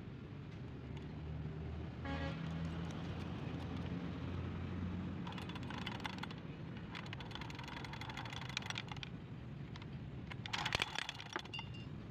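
Light metallic clicking and rattling of hand tools and small parts against a dismantled chainsaw engine, in three short spells in the second half, the last the loudest. A low motor hum sits underneath for the first few seconds.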